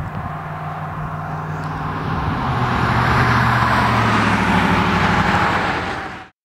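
A road vehicle passing, its engine hum and tyre noise swelling about two seconds in, then cut off suddenly near the end.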